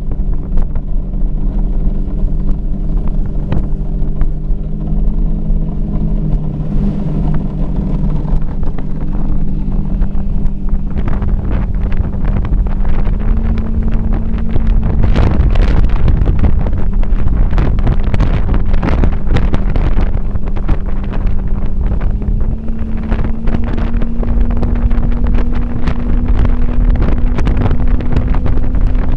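Mercury 400R supercharged inline-six outboard pushing a tunnel-hull boat at speed, its pitch stepping up twice as the boat gains speed. Wind buffets the microphone and spray hiss builds up about a third of the way in.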